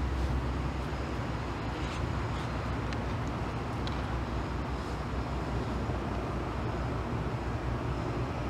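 Steady low outdoor rumble, with a few faint ticks around the middle.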